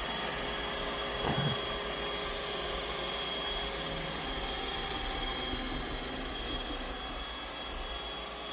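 Robot vacuum cleaner running: a steady whirring hum with a thin, high whine held over it.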